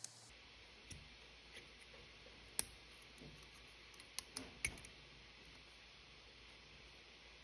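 Sharp clicks and snaps from spot-welding work with a DIY microwave-transformer welder on copper battery tabs, scattered and irregular, the loudest about two and a half seconds in and a quick cluster near the middle. A faint low hum runs underneath.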